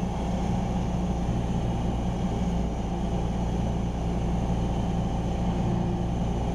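Cessna 172R Skyhawk's four-cylinder Lycoming piston engine and propeller droning steadily in flight, heard inside the cockpit.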